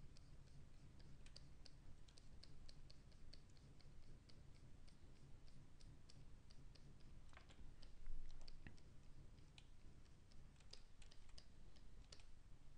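Faint, irregular clicking and tapping of a pen stylus on a graphics tablet and of computer keys during digital sculpting, a few clicks a second, with one louder brief sound about eight seconds in.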